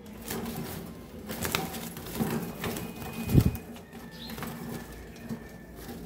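Wire birdcage clinking and rattling as a hand reaches in among cockatiels, with wings flapping. A dull thump about three and a half seconds in is the loudest sound.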